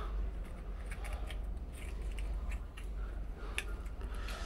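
Faint scattered clicks and creaks of walnut shells grinding against each other as three walnuts are squeezed hard together in one hand, over a steady low room hum.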